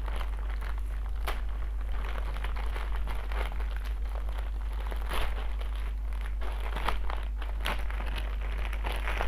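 Plastic courier mailer bag being pulled and torn open by hand: irregular crinkling and rustling of the plastic with a few sharper snaps, over a steady low hum.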